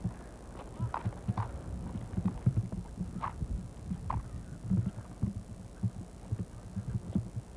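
Irregular low thumps and knocks of handling noise on a hand-held camcorder's built-in microphone as the camera is carried and swung about, with a few sharper clicks.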